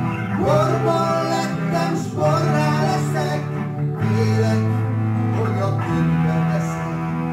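Rock band playing an instrumental passage: sustained organ chords that change every second or two, under a bending lead melody.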